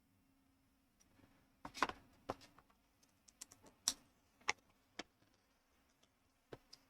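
Small plastic building bricks clicking and tapping as they are handled and pressed together: a string of irregular, faint sharp clicks.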